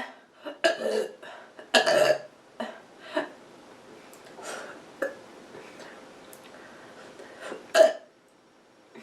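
A person burping repeatedly from a full stomach: a run of separate burps, a long loud one about two seconds in, several shorter quieter ones after it, and another loud one near the end.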